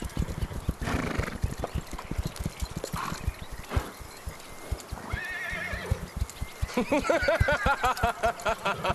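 Hoofbeats of several ridden horses, a dense run of knocks, with horses whinnying over them. The longest whinny comes near the end and lasts about two seconds, its pitch quavering up and down.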